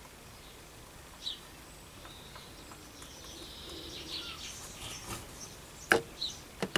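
Small birds chirping in the background, short high calls every couple of seconds over a faint hiss. A few sharp clicks come near the end.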